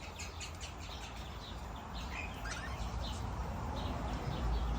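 Many aviary birds chirping: a busy chatter of short, high calls overlapping one another, over a low rumble.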